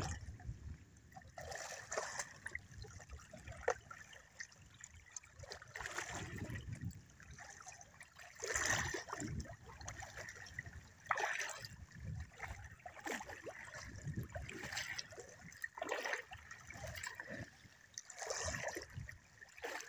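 Feet wading through shallow seawater, with irregular sloshing and splashing every second or two.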